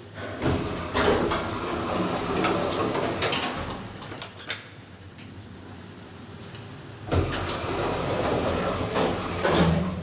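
Otis elevator car doors sliding open with a sudden start, then, after a quieter pause of a few seconds, sliding shut again and ending in a knock as they meet.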